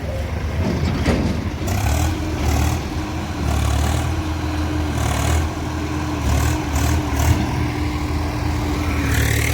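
Heavy diesel engine running steadily with a constant hum, with short bursts of hiss every second or so.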